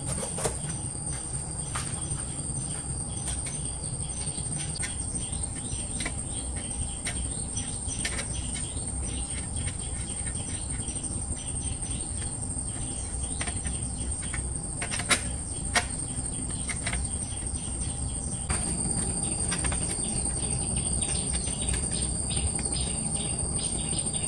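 Steady high-pitched insect chorus, with scattered light clicks and clinks of steel wrenches on a bicycle's nuts and frame.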